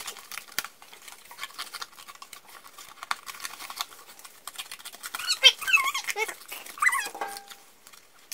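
Scissors snipping through thin cereal-box cardboard, a steady run of small clicks and crunches. About five seconds in comes a high, wavering whine that rises and falls, with a shorter one a second later; these are the loudest sounds.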